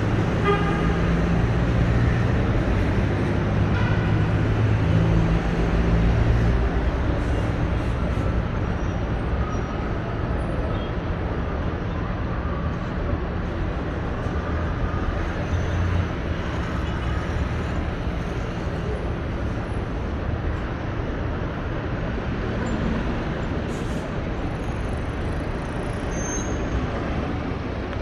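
Steady road traffic, with a heavy vehicle's engine droning loudest in the first several seconds, then easing to a continuous lower rumble of passing cars.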